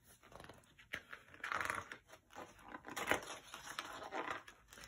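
Pages of a picture book being handled and turned: a few soft paper rustles, the clearest about a second and a half in and about three seconds in.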